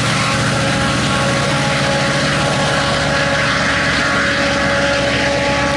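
Diesel engine of a GO Transit MP40 locomotive running under power as it pushes a departing commuter train away: a steady drone with a few held tones over it.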